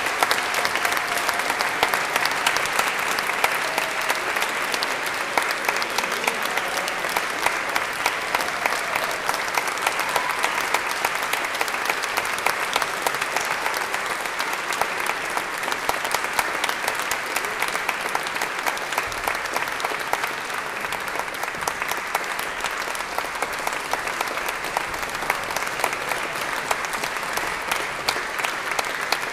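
Audience applauding: dense, even clapping at a steady level.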